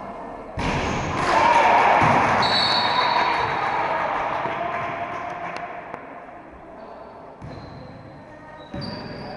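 Echoing sound of a basketball game in a gym hall: ball bounces and players' voices, with a swell of noise starting about half a second in and dying away over the next few seconds.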